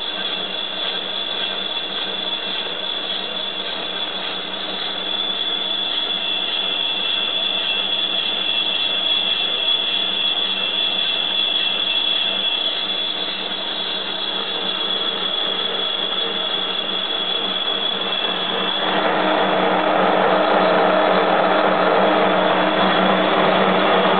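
Soviet 1K62 engine lathe running at 100 rpm and cutting bronze, taking a 0.8 mm deep cut at 0.3 mm/rev feed, a steady mechanical run with a high whine over it. About three quarters of the way through the whine stops and a louder, rougher machine noise takes over.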